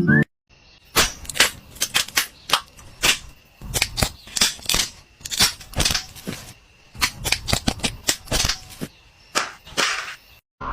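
A run of sharp, irregular clicks and knocks, roughly two or three a second, from hard objects striking or snapping.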